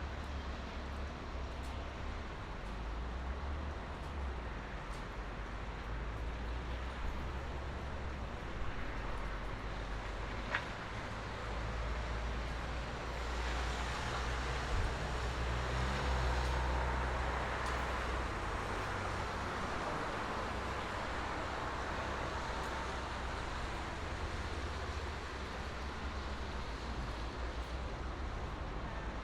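Highway traffic: a steady low rumble of engines and tyre hiss from passing vehicles, swelling louder for several seconds around the middle.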